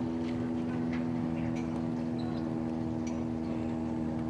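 A motor running steadily at an unchanging pitch, a constant low hum, with a few faint ticks over it.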